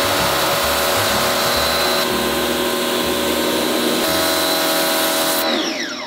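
Pressure washer running, its water jet hissing against the plastic grille panel of a ceiling air conditioner. Near the end the motor winds down with a falling whine.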